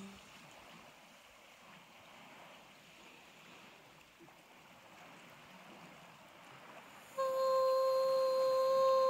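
Faint, even hiss of the sea at night. About seven seconds in, a loud, steady tone starts suddenly and holds without wavering, with fainter higher overtones.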